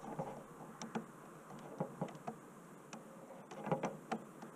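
Faint, irregular clicks and rustles of cloth rubbing and pressing against the camera, with a brief flurry of them about four seconds in.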